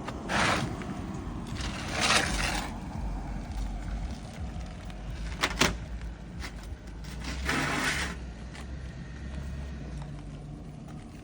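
Roof snake prying and ripping an old asphalt shingle loose: a few short scraping rips as it tears through the fasteners, with one sharp crack about five and a half seconds in.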